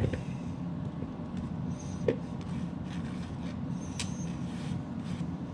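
Steady low background hum with a few faint clicks and light knocks from handling food and utensils at a kitchen counter; the sharpest click is about two seconds in and another comes about four seconds in.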